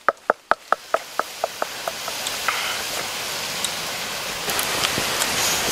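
Water boiling hard in a pot of duck eggs, a steady bubbling hiss that grows over the first few seconds. At the start, a quick run of sharp ticks, about five a second, dies away within two seconds.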